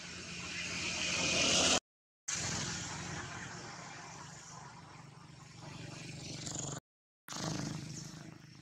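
A motor vehicle passing with a rushing noise that swells to its loudest about two seconds in and then slowly fades. It is broken twice by half-second gaps of dead silence.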